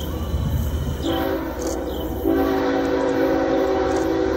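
Norfolk Southern diesel locomotive's multi-chime air horn sounding for a grade crossing as the train approaches. A short blast comes about a second in, then a long steady blast from about two seconds in, over the low rumble of the train.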